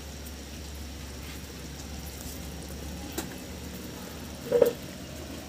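Katla fish paturi in banana leaves frying in its own released oil on a pan over a clay wood-fire stove on high heat: steady sizzling and fire noise over a low rumble, with a few faint clicks and one brief loud sound about four and a half seconds in.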